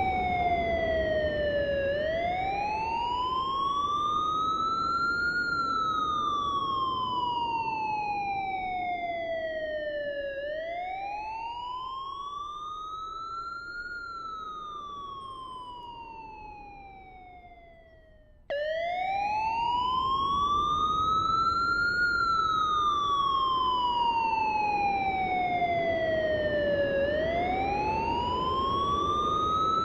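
Electronic emergency-vehicle siren in slow wail mode. Each cycle rises over about three seconds and falls over about five, over a low rumble. A little past halfway it fades down over several seconds, then cuts back in suddenly at full strength, as a looped recording restarting.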